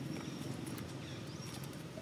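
Outdoor ambience: a steady low rumble with a few short high chirps that fall in pitch, a thin high tone that comes and goes, and scattered light clicks.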